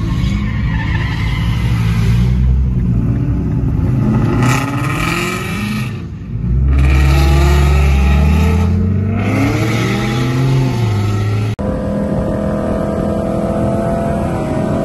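Performance cars accelerating hard at full throttle. The engine pitch climbs and drops back with each upshift, several times about two seconds apart. About three-quarters of the way through the sound switches abruptly to a steady engine drone at constant pitch.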